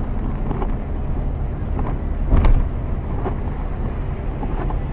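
Car driving on a rain-soaked highway, heard from inside the cabin: a steady low road and engine rumble, with one loud thump about two and a half seconds in.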